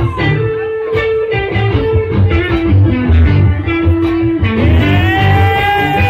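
Electric guitar lead played live, picking a run of single melody notes over a steady low bass pulse; near the end one note slides up and is held.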